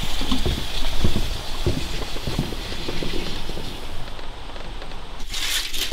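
Footsteps and knocks on wooden deck boards, a few irregular thuds over a steady high hiss, with a brief rattling burst near the end.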